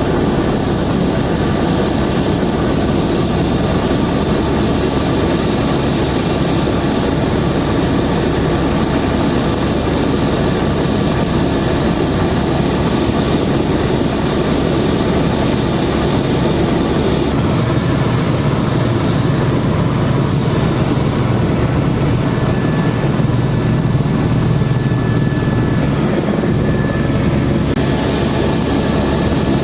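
Helicopter in flight heard from inside the cabin: steady loud rotor and turbine noise with a fast low beat from the rotor blades, and a faint steady whine in the second half.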